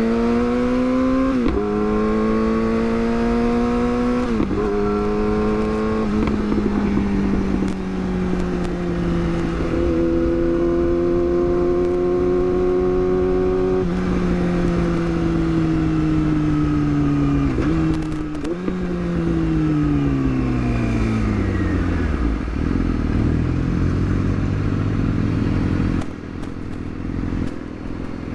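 Yamaha R6's inline-four engine revving up through two upshifts, then holding a steady cruise. Near the two-thirds mark it downshifts twice with quick rev blips, winds down on engine braking and settles to a low idle.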